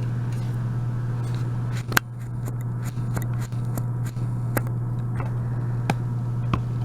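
Steady low hum with a few small metallic clicks and scrapes from a lock pick and tension wrench working in the keyway of an Abus 72/40 padlock, the sharpest click about two seconds in and fainter ticks later on.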